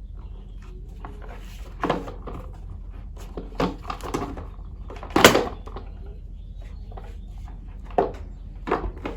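Scattered knocks, clunks and rustles of motorcycle airbox parts and an air filter being handled and fitted, the loudest clunk about five seconds in, over a steady low hum.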